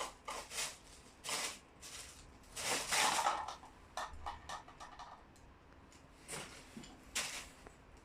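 Cats scampering and scuffling at play, their paws patting and scrabbling in irregular bursts, the longest and loudest about three seconds in.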